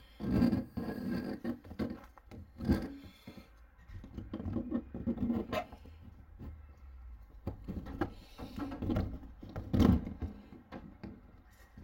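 Truma boiler's vent piece being worked through a hole cut in the camper van's metal side: irregular rubbing and scraping with several knocks, the loudest about ten seconds in.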